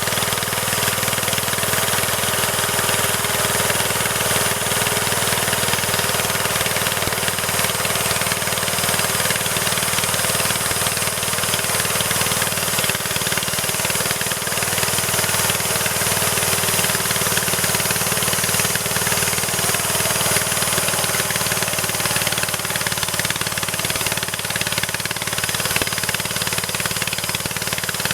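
Engine of a homemade tree-cutting machine running steadily and loudly, with a rough, even clatter over a steady low hum.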